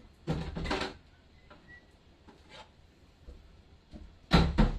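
Kitchen items being handled: a brief scraping rattle just under a second in, then a louder clatter near the end.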